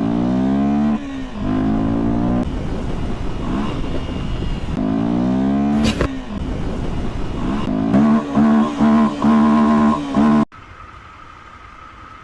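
Honda Tornado XR 300L's single-cylinder engine revving, its pitch climbing and falling again and again, with a quick series of throttle blips near the end before the sound cuts off suddenly.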